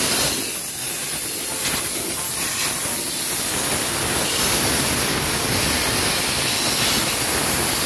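Compressed-air blow gun hissing steadily as it blows a freshly cleaned truck dashboard dry.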